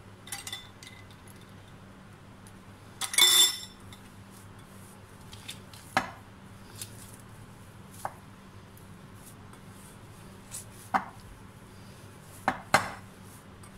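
Scattered clinks and knocks of a metal spoon and hands against bowls as ice water is spooned into pie dough and the dough is pressed together by hand in a glass bowl. The loudest is a ringing clink about three seconds in, with single sharper taps near six, eleven and twelve and a half seconds, over a faint steady hum.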